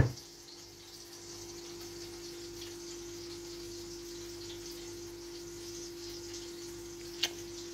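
A steady, even hum with a faint hiss over it, and one short click near the end.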